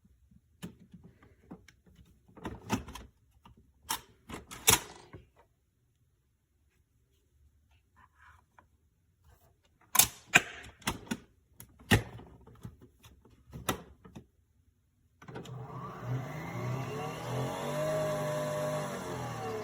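A run of clicks and knocks of plastic parts being handled, then, about fifteen seconds in, a Nespresso Vertuo Next coffee machine's motor starts and runs steadily with a whirring pitch that rises and falls.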